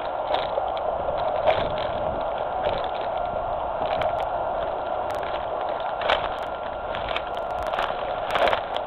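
Footsteps through grass and undergrowth: irregular rustles, crackles and snaps of brushing vegetation over a steady hiss.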